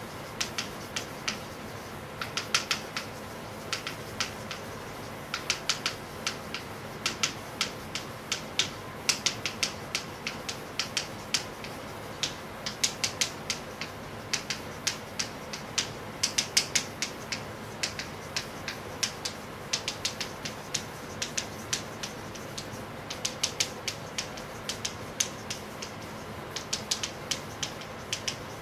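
Chalk writing on a blackboard: quick runs of sharp taps and clicks as each word is written, with short pauses between lines.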